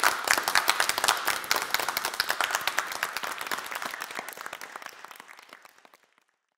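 Audience applauding, many hands clapping, fading out gradually over the last couple of seconds.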